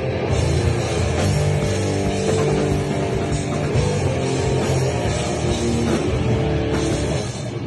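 Heavy rock band playing live: distorted electric guitars, bass and drum kit with a steady wash of cymbals. The cymbals drop out near the end, leaving the guitars.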